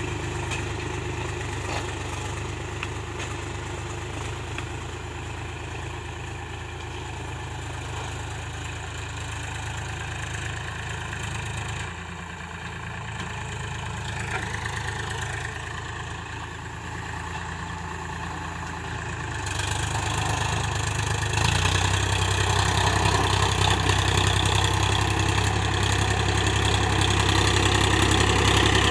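Powertrac Euro 50 tractor's diesel engine running steadily, growing louder in two steps about two-thirds of the way through.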